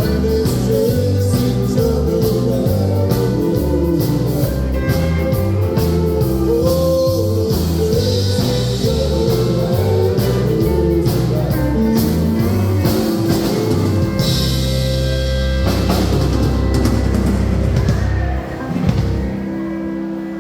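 Live band playing a country song with bass, drums and guitar, the bass stepping through a walking line. The song closes on a cymbal crash and a held final chord that stops about 18 seconds in.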